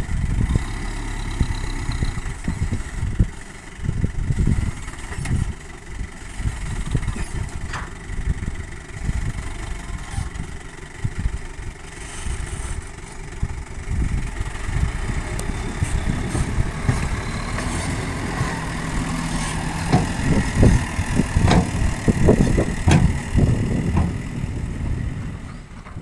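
Toyota Dyna dump truck's diesel engine running while its raised tipper bed unloads soil, a steady low rumble that grows louder and more uneven over the last few seconds.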